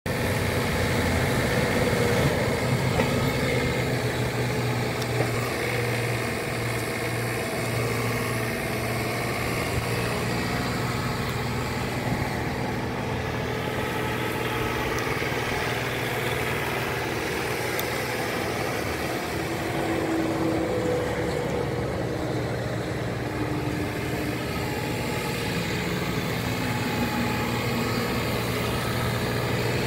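The diesel engine of a 2016 John Deere 3039R compact tractor running steadily at an even speed as the tractor drives slowly about on gravel.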